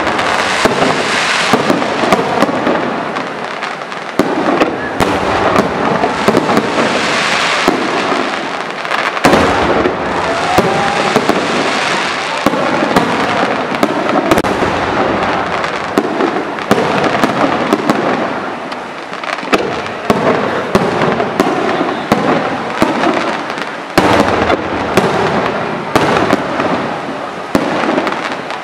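Fireworks display: loud, continuous crackling with many sharp bangs following one another without a break.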